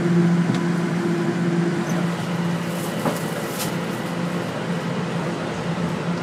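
Toronto Rocket subway train running, heard from inside the car: steady rumble of wheels on track with a steady low hum that fades after about two seconds. A couple of sharp clicks come about three seconds in.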